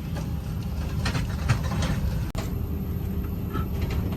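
Steady low hum inside an Airbus A320's cabin at the gate, with the air conditioning running, and a few light clicks and knocks about a second in.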